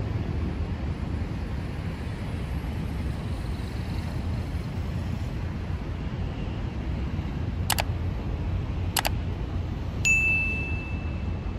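Steady low rumble of outdoor city ambience, over which come two mouse clicks about a second apart and then a bright bell ding ringing for about a second and a half. The clicks and ding are a subscribe-button animation sound effect.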